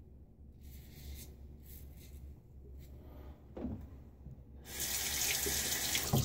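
A few faint scrapes of a Parker 98R safety razor on stubble. About four and a half seconds in, a bathroom sink tap is turned on and water runs loud and steady into the basin.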